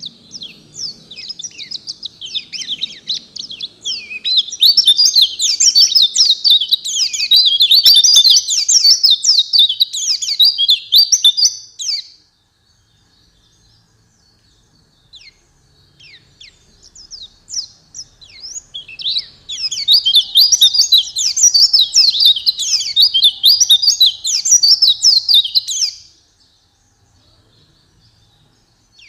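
White-eye (pleci) song: two long bouts of rapid, dense twittering, each lasting about seven or eight seconds, with scattered short high down-slurred call notes before, between and after them.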